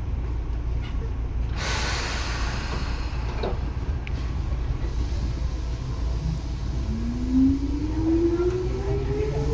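Tobu 9000 series electric train: a steady low rumble, a short burst of air hiss about a second and a half in, then from about seven seconds the traction motor whine starts and rises steadily in pitch as the train accelerates.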